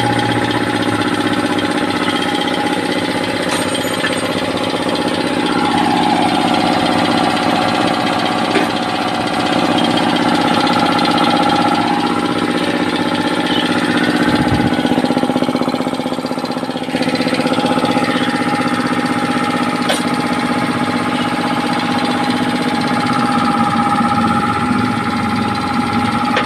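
Power Craft 3 hp air compressor with a twin-cylinder pump running, a steady mechanical drone with a constant hum.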